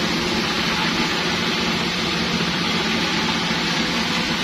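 A running motor droning steadily, with a low hum under a dense rushing noise.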